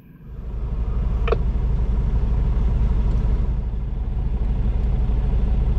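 Heavy-haul truck's diesel engine running steadily with a low drone. It swells up in the first second, and there is a single short click about a second in.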